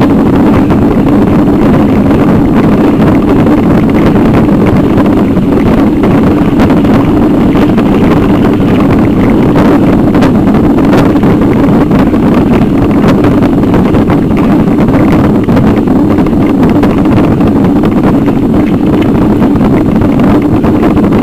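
Steady loud rumble and rattle of a bicycle-mounted camera shaking over cobblestones, with wind on the microphone.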